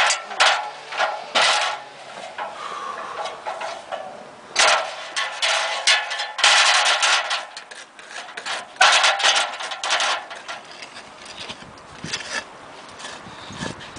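Roof repair work: irregular scraping and knocking in bursts of up to about a second, busiest around the middle.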